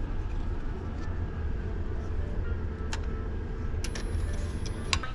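A room key card is fed into a hotel self check-out kiosk's card slot: a click about three seconds in, then a brief thin high whine that ends in a click near the end. Under it runs a steady low rumble.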